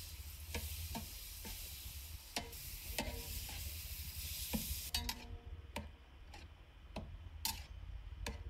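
Minced mutton sizzling as it fries in a large pan, with a long-handled spoon scraping and knocking against the pan every second or so. The sizzle drops away about five seconds in while the spoon knocks go on.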